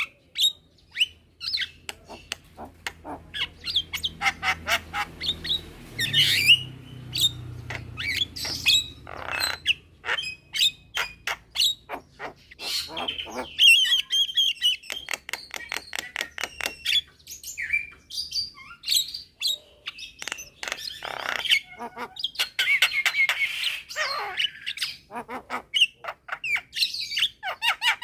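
Javan mynas calling: a dense, rapid mix of harsh squawks, sharp clicks and short chirps, several birds calling back and forth.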